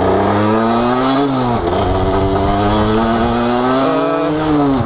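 Gilera SMT supermoto's small two-stroke engine running under way, its note slowly climbing as it pulls, dropping briefly about a second and a half in, then climbing again and dipping once more near the end.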